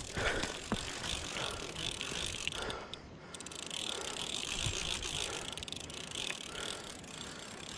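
Fishing reel being cranked steadily with a continuous ratcheting whir, reeling in a hooked fish.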